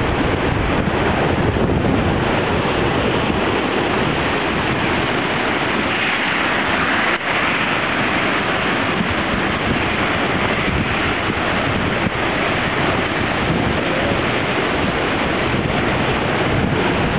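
Broken river ice and slush running downstream in a spring breakup: a steady rushing, scraping wash of floes, with wind buffeting the microphone.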